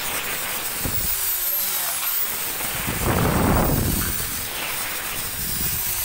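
Electric drill boring small holes through a PVC pipe, the motor running with its pitch dipping and recovering as the bit cuts into the plastic. It is loudest about three seconds in.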